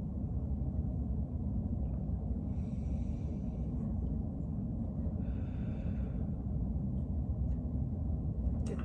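A person taking slow, deep breaths in and out, as asked during lung auscultation with a stethoscope. Two breaths are heard, about two and a half seconds apart, over a steady low rumble.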